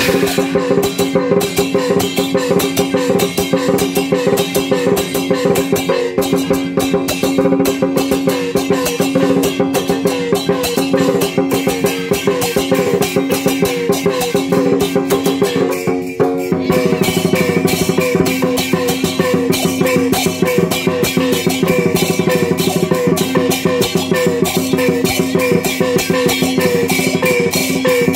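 Dragon dance percussion ensemble playing a fast, dense rhythm: a large barrel drum beaten rapidly, with hand cymbals clashing and hanging gongs ringing under it. A little past halfway the pattern breaks briefly and picks up again.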